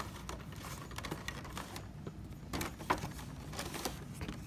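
A cardboard toy box with a clear plastic window being opened and handled by hand: an irregular run of light clicks, taps and crinkles, the loudest about three seconds in.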